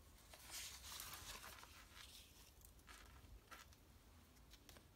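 Faint rustling of an old paper magazine's pages as it is opened and handled, with a few light ticks of paper; the rustle is strongest about half a second to a second and a half in.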